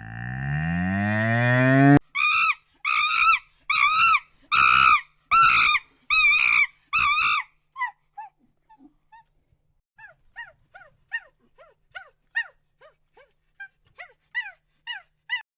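A cow mooing, rising in pitch and cut off sharply about two seconds in. Then a different animal gives six loud, short, high-pitched calls, followed by a run of fainter, quicker calls that fall in pitch.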